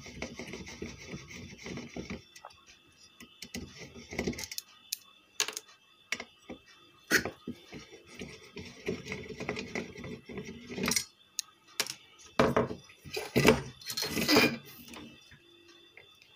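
Screwdriver working screws loose on an inverter's heatsink, with scattered sharp metal clicks, scrapes and small knocks as the screws and the circuit board are handled.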